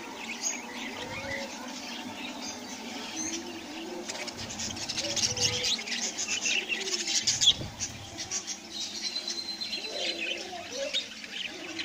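A flock of budgerigars chattering: a dense, continuous stream of short high chirps and warbles from many birds at once. A few low muffled bumps come through, the sharpest about two thirds of the way in.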